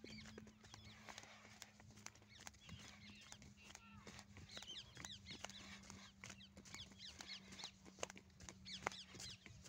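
Faint chirping of small birds, many short calls thickest in the second half, over soft scattered steps on a dirt track from the walking calf and its handler. A steady low hum runs underneath.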